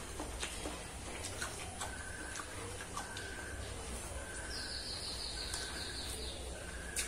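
Close eating sounds of a person eating rice and pork with his fingers: scattered wet clicks and smacks of chewing and of fingers working rice on the plate. Birds call in the background, a short steady whistled note repeated every half second or so, and a quick falling trill of high notes near the end.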